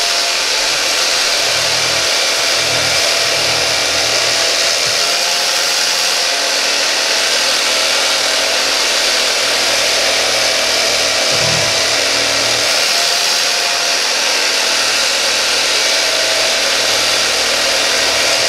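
Electric carving knife running steadily, its twin blades buzzing as they slice down through a stack of cooked tandoori chicken.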